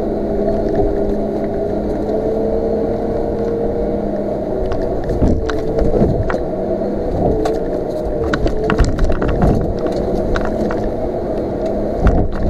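Off-road vehicle's engine running steadily under load, its pitch rising and falling slightly, while it drives through shallow floodwater and ice, with scattered knocks and clatters from about five seconds in.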